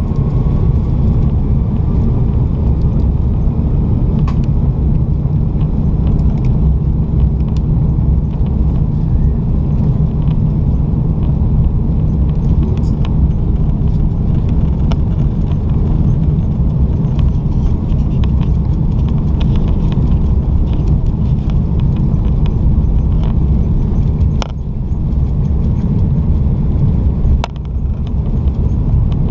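Inside the cabin of an Airbus A330 at the window over the wing during the take-off roll: the Rolls-Royce Trent 700 engines and the wheels on the runway make a loud, steady low rumble. A faint whine rises in the first couple of seconds, and a few light knocks come through.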